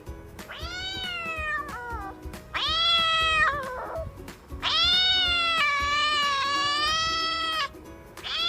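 Domestic cat meowing: three meows, the third a long drawn-out one of about three seconds, with a fourth starting at the end.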